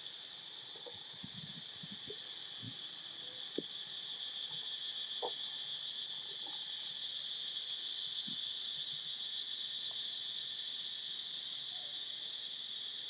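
Steady chorus of insects, a continuous high-pitched drone. Under it come a few faint, scattered short ticks and rustles, most of them in the first half.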